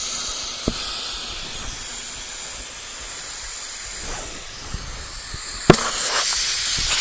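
Compressed air hissing steadily through a dial-gauge tyre inflator into a car tyre to seat its bead on the steel rim. A single sharp pop comes a little before the end, the bead snapping onto the rim.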